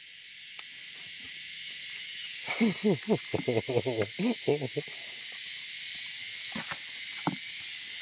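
Steady, high-pitched chorus of insects, with a man talking briefly in the middle.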